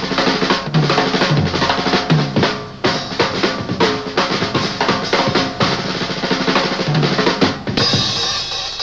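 Music soundtrack led by a drum kit playing a steady beat.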